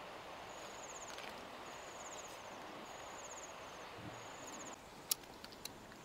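An insect chirping in high, pulsed trills, each under a second long and repeated about once a second, over a faint steady hiss. The chirping stops about three-quarters of the way through, and a single sharp click follows.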